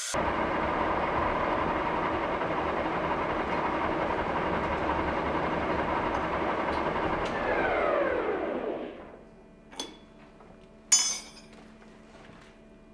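Old manual lathe running at about 350 rpm with the spinning steel hammer head pressed and rubbing against a second hammer in friction welding. The machine then spins down with a falling whine and stops. A small click and then a sharp knock follow.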